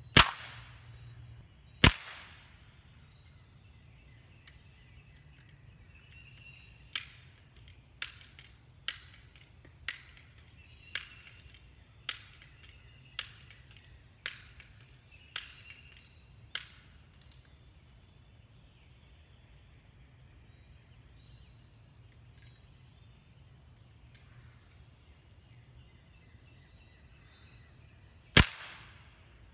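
Crosman 1377 multi-pump air pistol shooting session: sharp, loud cracks, two within two seconds of each other at the start and one near the end. In between come about ten fainter, evenly spaced clicks, roughly one a second, which fit the pistol being pumped up between shots.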